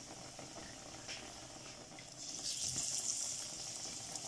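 Besan-battered bread slice deep-frying in hot cooking oil in a wok: a steady sizzle with small crackles. About two seconds in the sizzle grows louder and brighter as a second battered slice is lowered into the oil.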